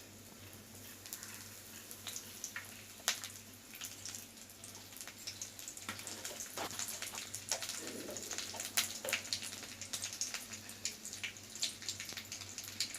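Panch phutan seeds, dry red chillies and curry leaves crackling in hot mustard oil in a kadai: scattered sharp pops that come faster after the middle as the seeds begin to burst.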